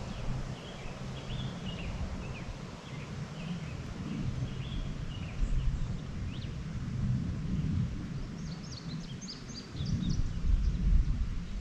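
Wind on the microphone making a steady low rumble, with small songbirds chirping over it: a run of short chirps through the first half and a quicker cluster of higher notes about nine seconds in.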